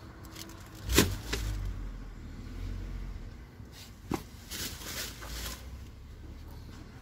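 Handling noise from shoes being pulled out of a heap of discarded clothes and plastic bags: a sharp knock about a second in, another just after four seconds, and rustling as the items are moved.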